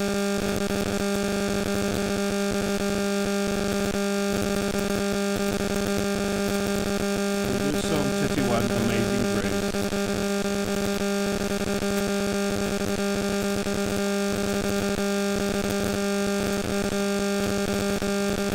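Steady electrical buzz with hiss: a low hum with a stack of higher tones over it, typical of hum or interference on the audio feed. A brief wavering, voice-like sound comes about eight seconds in.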